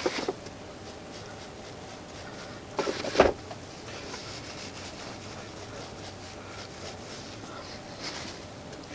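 A hand pressing and smoothing damp refractory lining into a steel forge box: a few knocks at the start, a louder cluster of knocks ending in a thump about three seconds in, and faint scraping after.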